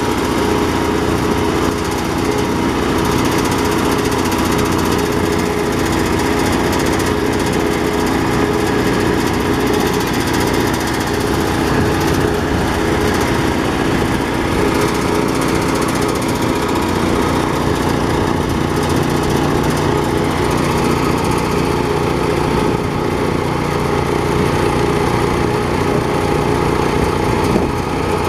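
Small engine running steadily, driving a power rice thresher while bundles of rice stalks are fed into its spinning threshing drum.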